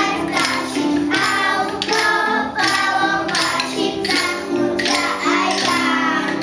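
A group of young children singing a song together, tapping pairs of wooden rhythm sticks along with it.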